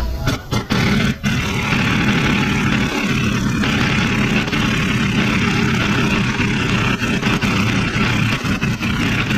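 Pneumatic impact wrench running on a rear shock absorber's upper mounting bolt: a few short bursts in the first second, then one long steady run that stops near the end.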